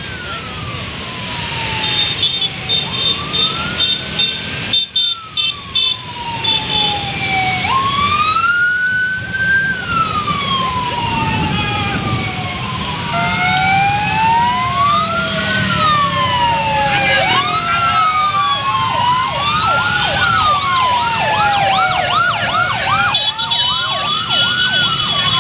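Several electronic sirens wailing at once in overlapping rising and falling sweeps, with a fast yelp cycle joining about two-thirds of the way through, over the running of many motorcycle engines as an ambulance's motorcycle escort convoy passes. A rapid run of high beeps sounds from about two seconds in.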